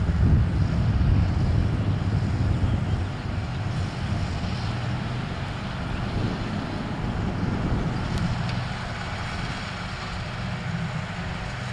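John Deere 6920 tractor's six-cylinder diesel running steadily under load as it pulls a harrow across tilled ground. The steady rumble drops a little about three seconds in.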